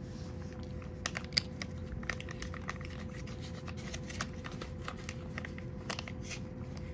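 A cat eating wet food from a ceramic bowl: irregular small wet clicks and smacks of chewing and licking, over a faint steady hum.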